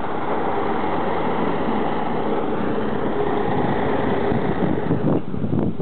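A motor vehicle driving past on the street, its engine and tyre noise swelling and then easing off. Near the end wind buffets the microphone.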